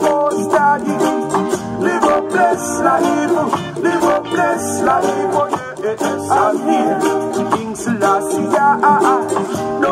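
A ukulele strummed along with a roots reggae recording that has a man singing over it.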